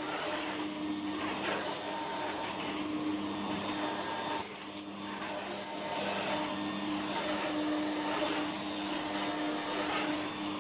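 A 1998 Electrolux Power System Z1740 upright vacuum cleaner running steadily with a motor hum and airflow hiss. A sharp click comes a little before halfway, followed by a brief dip in level.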